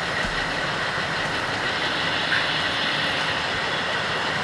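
HO scale model diesel locomotives and freight cars running past, with a steady engine-like rumble.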